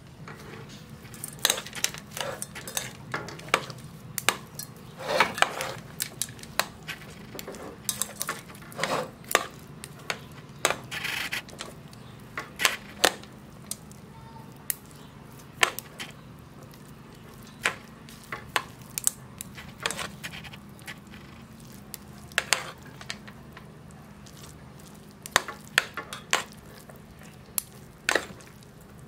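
Chopsticks knocking and scraping against a stainless steel pot as noodles are tossed and mixed: irregular sharp clicks and taps, several a second in bursts, over a low steady hum.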